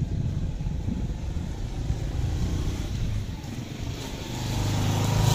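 Uneven low rumbling, then a motor vehicle's engine approaching, its steady hum growing louder over the last second or so.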